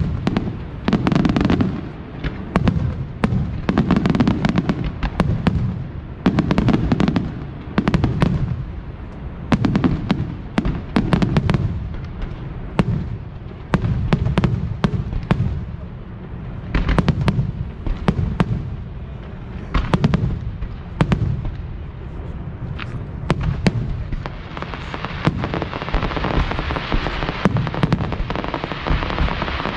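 Aerial fireworks display: rapid volleys of sharp shell bursts in quick clusters, with low booms between them. Over the last few seconds a steady hiss builds beneath the bangs.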